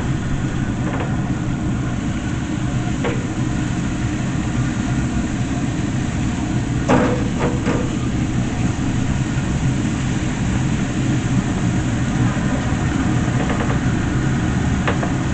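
A steady low motor hum with a few light metal clinks and one louder clank about seven seconds in, the sound of meat being handled and laid on a grill.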